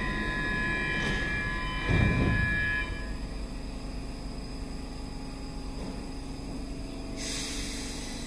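Stockholm metro train in an underground station: a whine of several steady high tones over a low rumble, with a heavy thump about two seconds in. The whine stops about three seconds in, leaving a low rumble, and a high hiss starts near the end.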